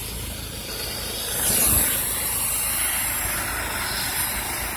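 Vehicle tyres hissing through wet snow and slush as it drives past, swelling about a second and a half in, over a steady low engine rumble.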